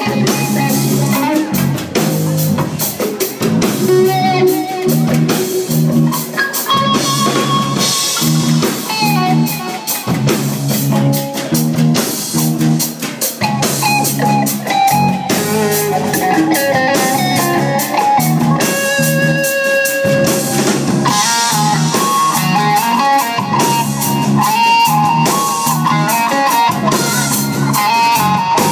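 Live band playing electric guitar, bass guitar and drum kit at full volume, with a steady drum beat under a repeating bass part and a melodic lead line over the second half.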